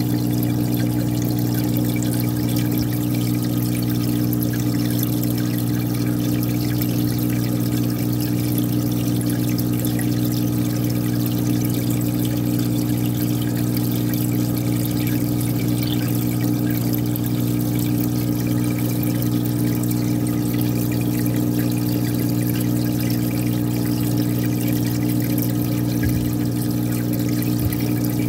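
Aquarium pump humming steadily, with a steady trickle of running water.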